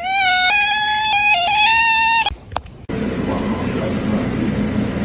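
A cat's long, high meow, held for about two seconds with its pitch shifting in small steps, that breaks off suddenly. A click follows, then a steady low noise for the rest.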